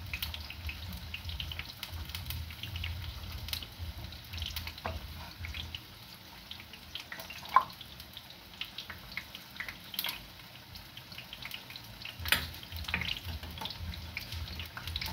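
Scattered light clinks and knocks of plates, pots and serving utensils as food is dished out, with a few sharper knocks and a low rumble underneath.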